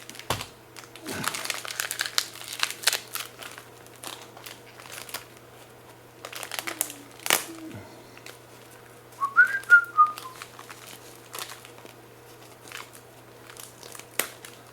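Duct tape being handled, pulled and pressed down: scattered crinkling, rustling and clicks. About nine seconds in, a short whistle that rises and falls.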